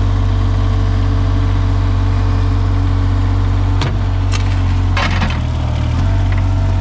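An engine idling steadily, with a few sharp knocks and a short clatter about four to five seconds in.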